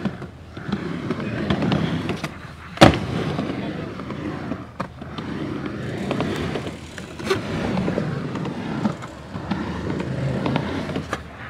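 Skateboard wheels rolling and carving on a ramp, with a sharp clack of the board against the ramp or coping about three seconds in and a few lighter knocks.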